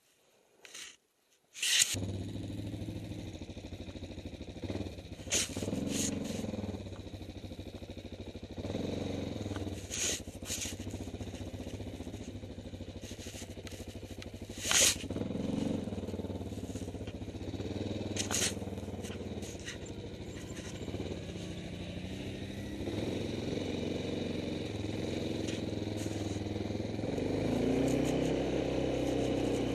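Quad bike (ATV) engine running steadily as it is ridden over rough ground, with occasional knocks and rattles from bumps. It starts after about two seconds of near silence and gets louder near the end.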